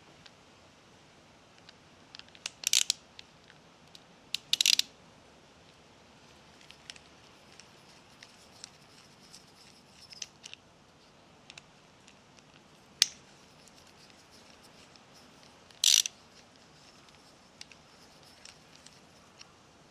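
Scattered short clicks and clatters of tools and suspension fork parts being handled and set down while a fork damper cartridge is fitted, with four louder clatters and several lighter ticks.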